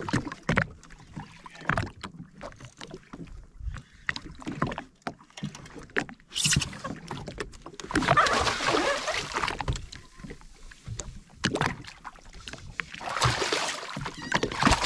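Water slapping and sloshing against a jet ski's hull, with scattered irregular knocks and two longer rushing, splashy stretches, about halfway through and again near the end.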